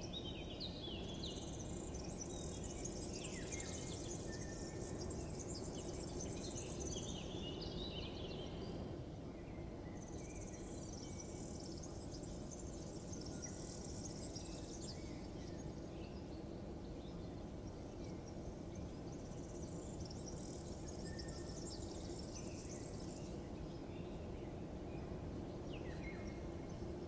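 Outdoor morning ambience: scattered short bird chirps and three long stretches of high insect buzzing, over a steady low background hum.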